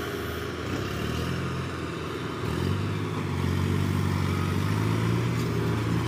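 Diesel engine of a Mahindra Novo 605 tractor running a Bull backhoe loader. It holds a steady note that gets louder about two and a half seconds in.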